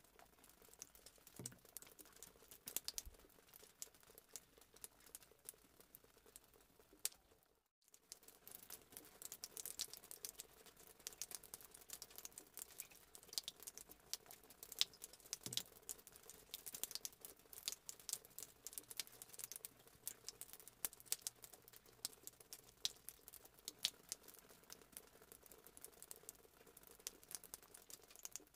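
Faint, dense crackling and ticking of water simmering in a steel pot, small bubbles rising around a sealed plastic cup of tea sitting in the hot water bath. The sound cuts out briefly about eight seconds in.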